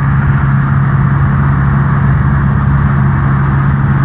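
Cessna 172N's four-cylinder Lycoming engine and propeller droning steadily in flight, heard from inside the cabin as an unchanging low hum under a steady rush of air.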